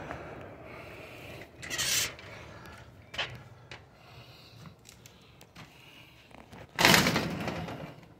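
House door opened and pushed shut, with short knocks and swishing as it moves; the loudest is a noisy rush of under a second near the end.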